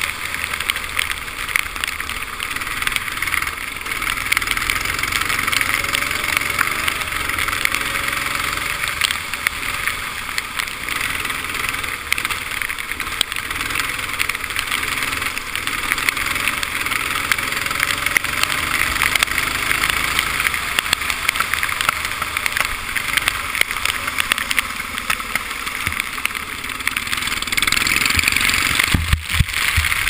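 A 125cc two-stroke TaG kart engine running at speed on a wet track, heard onboard. Its pitch slowly rises and falls through the corners under a steady rush of wind and tyre spray, and the sound dips briefly near the end.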